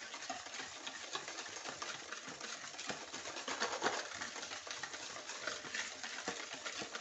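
Wire whisk beating a runny egg-and-sugar mixture in a bowl, its tines ticking and scraping rapidly and continuously against the bowl.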